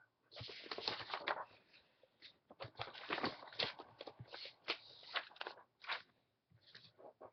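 Close, irregular rustling and crackling of things being handled at a desk, in clumps with a short lull about two seconds in.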